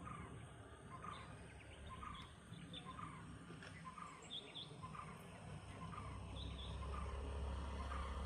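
A bird repeating a short call about once a second, with fainter higher chirps from other birds. From about six seconds in, a low engine rumble of an approaching vehicle grows louder.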